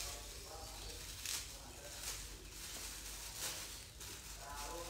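Faint rustling and handling noises of a gift being unpacked, a string of short soft scrapes and crinkles, with low murmured voices under them.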